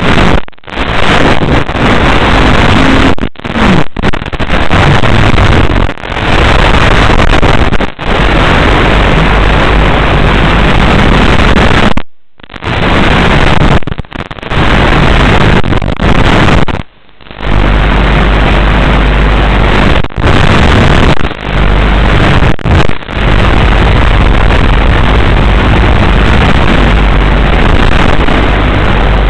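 Loud hiss and static from an analogue 5.8 GHz FPV video link's audio channel, recorded by the DVR on the goggles. It is steady, with a dozen or so sudden short dropouts to near silence.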